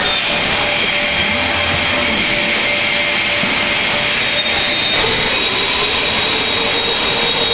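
Automatic MDF panel-cutting machine running: a steady rushing mechanical noise with a faint high whine held throughout.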